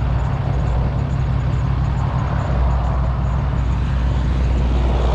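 Steady wind and road noise from travelling along a street, with a constant low hum underneath and no separate events.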